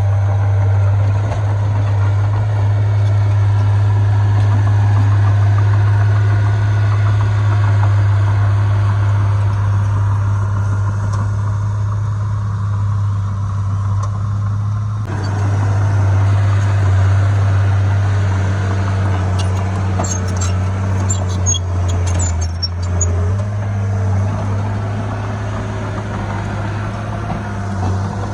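Heavy diesel engine of earthmoving machinery running steadily as a deep, low drone. The sound changes abruptly about halfway through, and a few light clicks and knocks follow a few seconds later.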